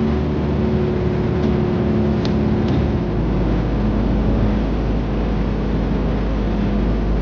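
Bus engine and road noise heard from inside the moving bus: a steady low drone whose rumble shifts about three seconds in.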